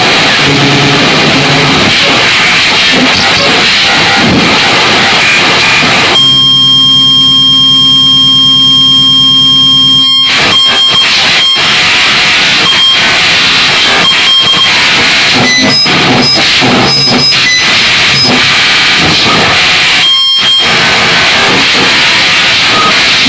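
Loud harsh digital noise music with cut-up editing. Dense static gives way about six seconds in to a held buzzing drone that cuts off abruptly four seconds later. Choppy, stuttering noise with sudden breaks and brief high beeps follows.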